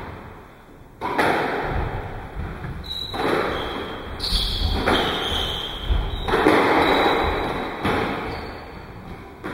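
A squash rally: about six sharp racket hits and ball impacts on the court walls, each ringing on in the court's echo. Short shoe squeaks on the wooden floor come a few seconds in.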